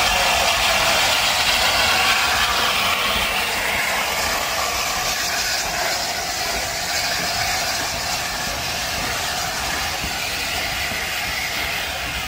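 LNER A4 Pacific steam locomotive pulling a train slowly past: a steady hiss of steam, then the coaches rolling by, slowly getting a little quieter.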